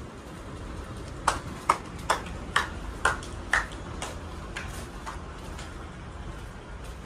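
Footsteps on a hard floor: sharp clicking steps about two a second, loudest for the first half-dozen, then fading, over a low steady rumble.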